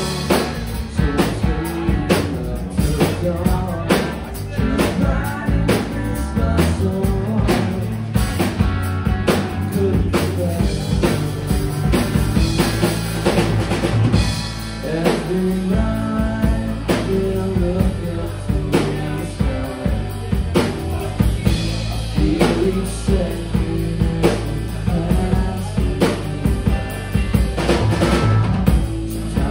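A rock band playing live in a small club: two electric guitars, electric bass and a drum kit with steady snare, rimshot and bass drum hits, in an instrumental passage without singing.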